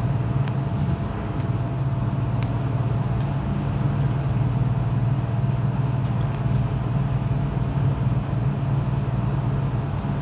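Steady low hum or rumble of a running motor or machine, even throughout, with a few faint clicks.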